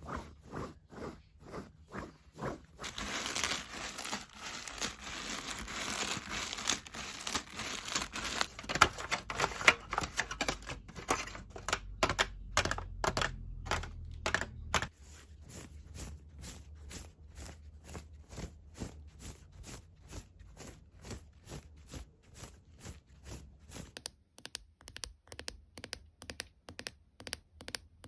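Close-up knocking at a steady rhythm of about two to three knocks a second. Crinkling and tearing of material joins it from about three seconds in and stops about twelve seconds in; the knocking turns a little quicker near the end.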